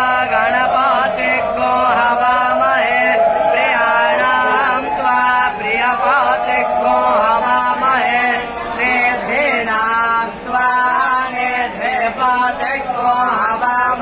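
A crowd of devotees chanting and calling out together during a temple arati, many voices overlapping in rising and falling calls over a steady low hum.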